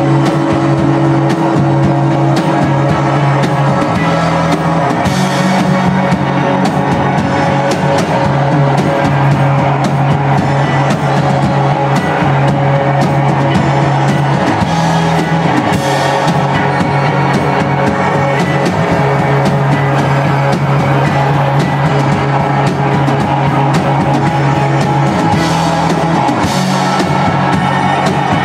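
Indie rock band playing live: electric guitars over bass and drum kit, with cymbal crashes swelling about 5, 15 and 26 seconds in.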